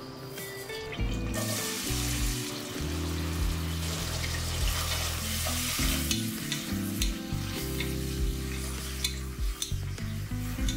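Hot oil sizzling in a pressure cooker as cumin and mustard seeds and then chopped onions fry, starting about a second and a half in. From about halfway on, a spatula stirs the onions and clicks against the pot. Background music plays throughout.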